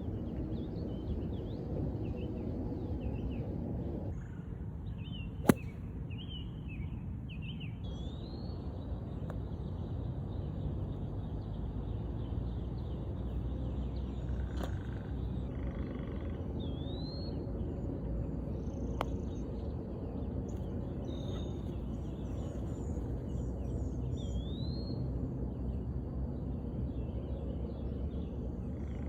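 A golf club strikes a ball once with a sharp crack about five and a half seconds in, over a steady low outdoor rumble with birds chirping repeatedly.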